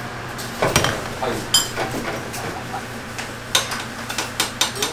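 Kitchen clatter: scattered clinks and knocks of metal pots, lids and bowls, one ringing briefly about a second and a half in, with a quick run of light knocks near the end, over a steady low hum.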